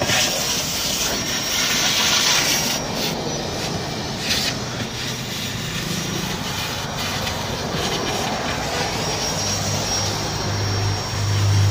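Shop vacuum running steadily with a thin high-pitched motor whine while its hose works over car floor carpet; a lower hum joins in near the end.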